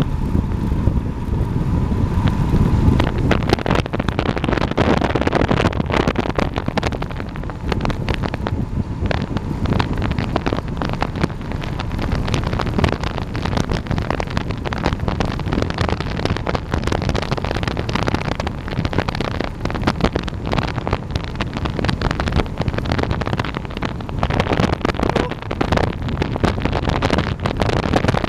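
Loud wind rush and buffeting on the microphone of a camera riding on a road bike descending fast, with constant small knocks and rattles from the road.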